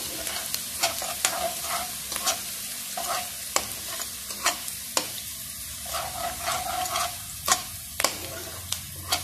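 Chopped onion, ginger and garlic sizzling in hot ghee in a wok, stirred with a metal spatula that scrapes and clicks irregularly against the pan, once or twice a second. The aromatics are being sautéed until fragrant.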